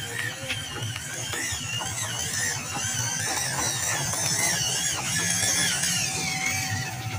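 WPL D12 RC pickup truck's small electric motor and gearbox whining as it crawls through grass and dirt, the pitch rising and falling with the throttle.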